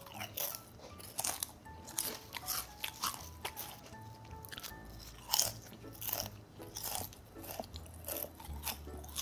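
Lay's tomato-ketchup-flavoured potato chips being bitten and chewed: a string of sharp, crisp crunches at an uneven pace, over faint background music.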